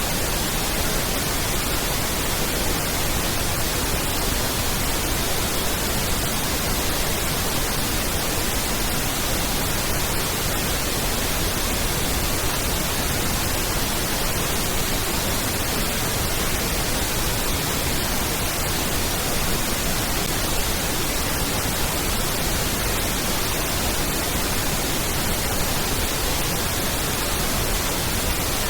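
Steady pink noise test signal: an even, unbroken hiss spread across the whole audible range, equal energy per octave, used for aligning and equalising a sound system.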